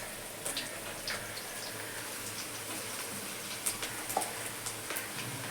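Battered cauliflower pieces deep-frying in hot oil: a steady sizzle with scattered small pops and crackles.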